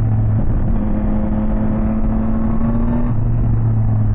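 Yamaha Tracer 9 GT's three-cylinder engine running at a steady speed, a constant low hum with no change in pitch.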